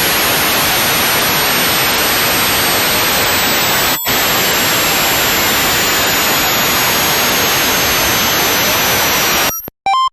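Power electronics harsh noise: a loud, dense wall of static hiss with thin high whistling tones slowly sliding downward. It drops out for an instant about four seconds in, then cuts off abruptly near the end, followed by a few short electronic blips.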